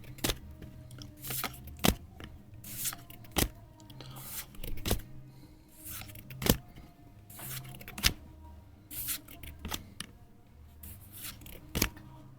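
Pokémon trading cards and a foil booster pack being handled at close range: an irregular series of crisp swishes and clicks, about one a second, as cards are slid and flicked off the stack one at a time.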